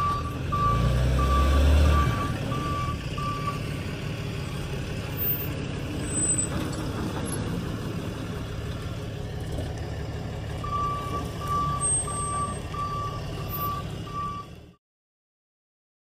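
Tow truck's backup warning beeper beeping about twice a second over the truck's running engine. The beeping stops about three and a half seconds in and starts again about eleven seconds in. The sound cuts off abruptly near the end.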